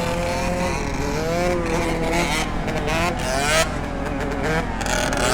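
Several dirt bike engines revving at once, their pitch rising and falling as they ride.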